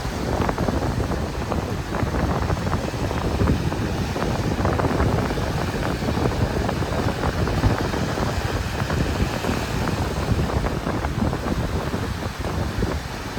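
Wind buffeting the microphone in a continuous, fluttering rumble, with surf washing underneath.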